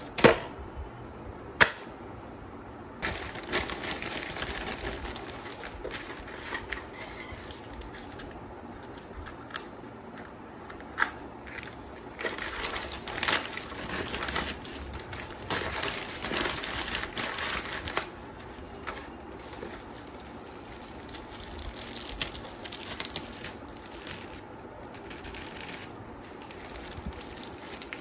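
Brown paper mailer rustling and crinkling as hands open it and pull a plastic-wrapped kit out, in long noisy stretches. There are two sharp knocks within the first two seconds.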